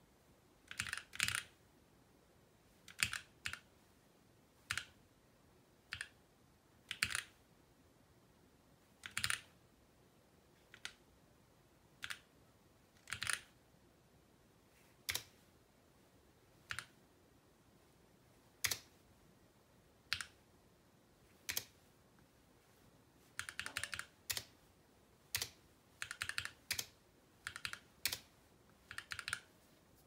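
Mechanical keyboard keys pressed one at a time, a second or two apart, each a short sharp click, with a few quick runs of several keystrokes near the end.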